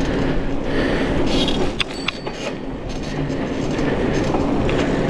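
A car being driven slowly, with a steady rumble of engine and tyres and a few light clicks about two seconds in.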